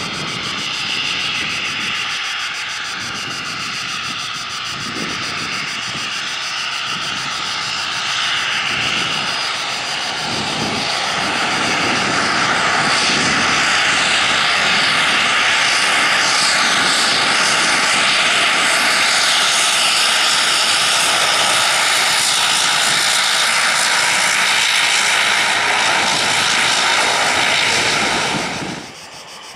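ATR-72-202 turboprop airliner's twin Pratt & Whitney Canada PW124B engines and propellers running at high power during its takeoff, a loud steady drone with a constant whine. It grows louder about halfway through and cuts off abruptly near the end.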